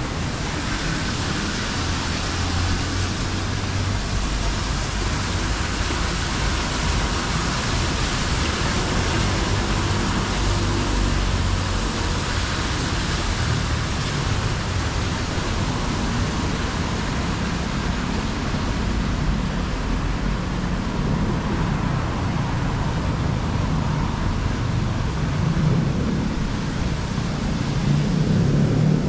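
Steady city street noise from road traffic, a continuous rush that swells louder near the end.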